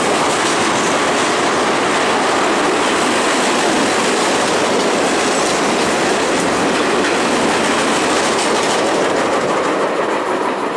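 Freight train cars rolling past, a steady loud rush of wheel-on-rail noise that eases slightly near the end as the last car goes by.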